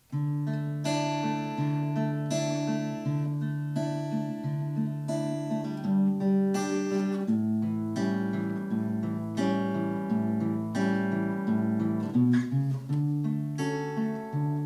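Acoustic guitar strumming chords in a steady, repeating pattern, with the chord changing about halfway through and again briefly near the end.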